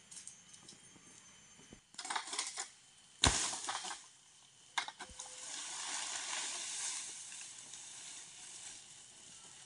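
Long-pole harvesting sickle working among dry oil palm fronds: a few knocks and rustles, one sharp thud a little after three seconds in, then a long rustling hiss of fronds.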